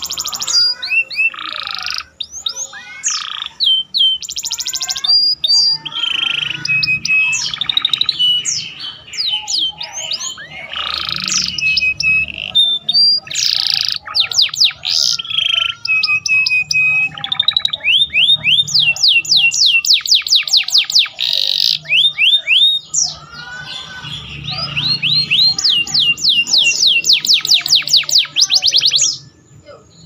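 Domestic canary singing a loud, continuous song of rapid trills and fast runs of high sweeping notes, with phrases copied from the bar-winged prinia (ciblek) worked in. The song breaks off near the end.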